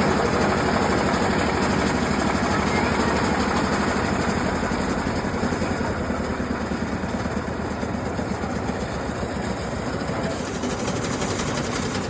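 Heavy engine of borewell drilling machinery running steadily, easing off slightly in level after a few seconds.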